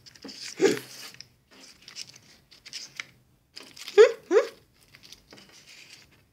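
Plastic condiment packets crinkling and rustling in irregular short crackles. Two short rising squeaks about four seconds in are the loudest sounds.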